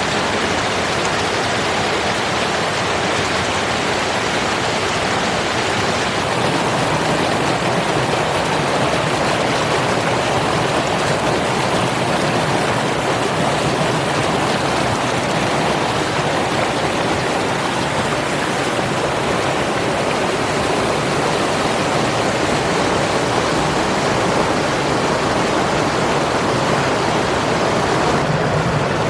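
Cascading mountain waterfall rushing steadily over multiple drops, running high after heavy recent rain.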